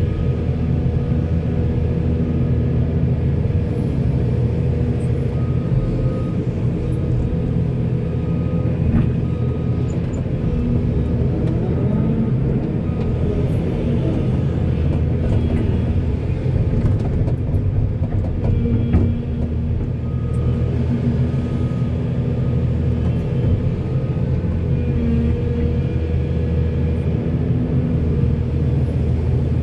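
Heavy diesel machinery engine running steadily, its pitch bending up and down in the middle as it works under load, with a few faint knocks.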